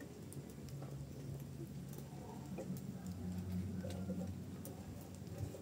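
Faint crackling and clicking of a wood fire burning in clay stoves, with sticks shifted in the firebox, over a low steady hum that changes pitch about halfway through.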